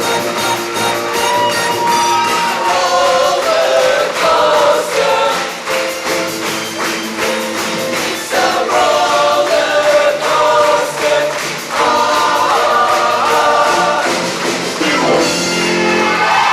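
Show choir singing an upbeat number over accompaniment with a steady percussive beat, the full ensemble building to a final held chord near the end.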